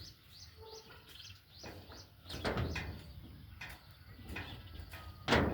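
Small birds chirping repeatedly, with several knocks and scrapes, and a louder bang near the end.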